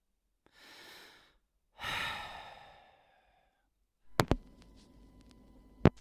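A person breathes in softly, then lets out a long sigh that fades away. About four seconds in come two sharp clicks, then a faint steady hum with a thin high tone, and one more sharp click near the end.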